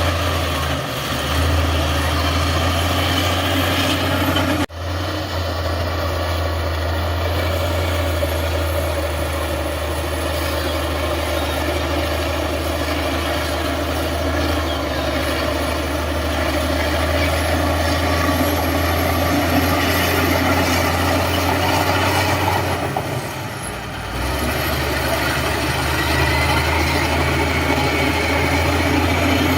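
Heavy diesel engine of earthmoving machinery running steadily, with a strong, constant low hum. The sound breaks off abruptly for an instant about five seconds in and dips briefly near the end.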